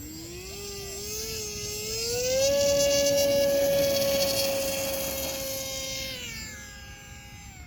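HobbyZone AeroScout RC plane's electric motor and propeller throttling up for takeoff: a whine that rises in pitch over about two seconds, holds steady at its loudest for a few seconds, then drops in pitch and fades near the end.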